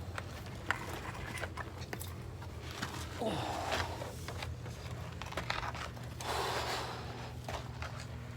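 Scraping, crunching and rustling of a person moving about in a cramped crawl space, with scattered clicks and breathing, over a steady low hum.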